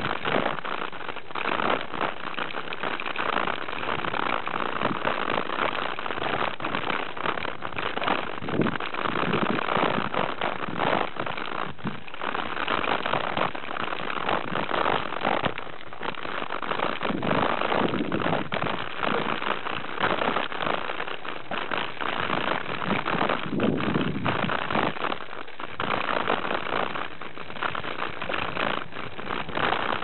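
Mountain bike ridden fast over rough singletrack: a continuous clatter of tyres on dirt and rock with the frame and parts rattling over bumps and roots.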